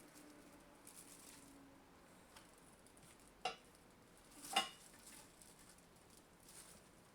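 Quiet handling noises of hard parts: two short, sharp clicks or knocks, about three and a half and four and a half seconds in, the second louder, over faint hiss.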